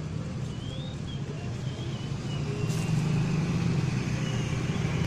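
Motorcycle engine idling steadily in the street, with faint high wavering chirps over it and a brief hiss about two and a half seconds in.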